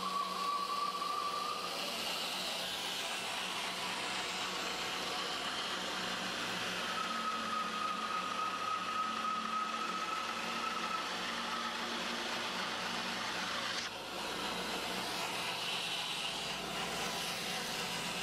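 Bandsaw resawing a pine board on edge: steady machine noise from the running saw, with a thin high whine from the blade in the cut that comes and goes.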